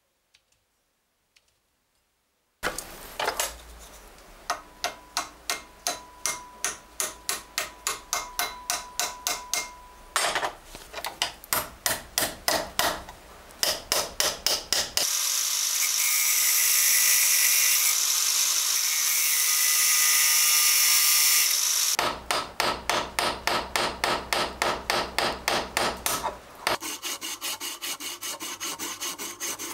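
A steel knife blade is scraped over a sharpening stone in quick, even strokes, about three a second. Midway comes about seven seconds of steady loud hiss, then more stone strokes. Near the end, faster rubbing as a sandpaper strip is pulled back and forth over the knife's wooden handle.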